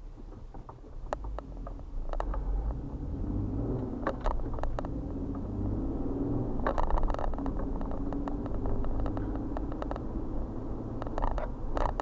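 Car engine and road rumble heard from inside the cabin as the car moves off and gathers speed, growing louder about a second in. Scattered clicks and rattles come in short clusters.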